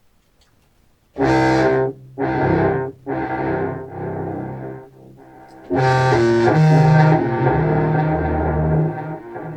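Contrabass clarinet played through an effects pedalboard (octaver, fuzz and a Walrus Fable granular delay) and heard through studio speakers. About a second in come three short blasts, each dying away, then a longer sustained passage that changes pitch partway through and fades near the end.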